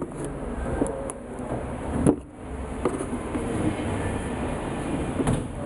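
Hands handling a knit sneaker close to the microphone: rubbing and scraping over a steady background rumble, with a few knocks, the loudest about two seconds in.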